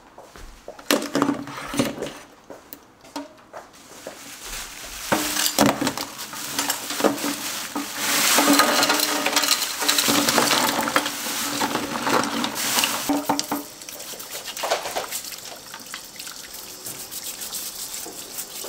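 Water running from a tap with clattering and knocking of things being handled; the running water is loudest for a few seconds in the middle, then stops.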